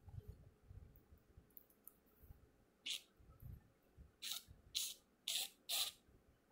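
Small spray bottle spritzing mist in five short hisses, the last four about half a second apart, with soft low bumps of hands handling the hair.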